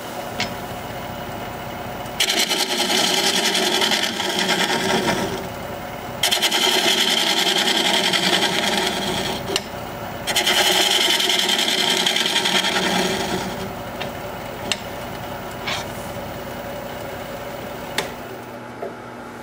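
Wood lathe spinning a live oak bowl while a gouge cuts the inside in three passes of a few seconds each: a loud hissing scrape of steel on the spinning wood. Between and after the passes the lathe runs with a steady hum, with a few light clicks near the end.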